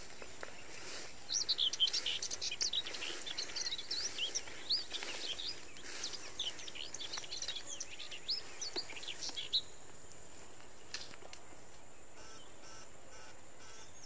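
Small birds chirping in a rapid, overlapping chatter of quick high notes, starting about a second in and dying away about two-thirds of the way through.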